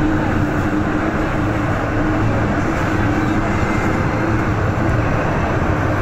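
MTR M-train electric multiple unit running, heard from inside the car as it pulls out past the platform and into the tunnel: a steady rumble of wheels and running gear with a faint, even motor hum underneath.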